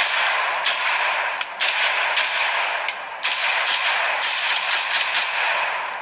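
An AR-style rifle fires repeated shots, roughly two a second, over a steady hiss.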